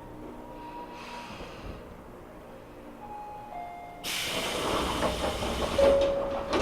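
Tobu 9000 series electric train heard from on board: a few faint steady tones, then about four seconds in a sudden loud hiss that lasts a couple of seconds, with a steady tone near the end.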